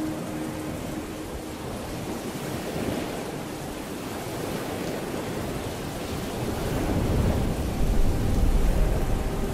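Steady rain, with a deep rumble of thunder that builds and grows louder over the last couple of seconds.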